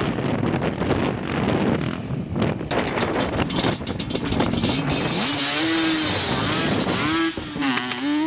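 ATV engines running, with wind rushing over the microphone. From about five seconds in, one engine's note rises and falls several times as it is throttled up and down.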